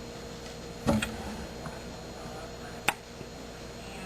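Household items and kitchen cabinets being handled: a couple of quick knocks about a second in and a single sharp click near three seconds, over a faint steady hum.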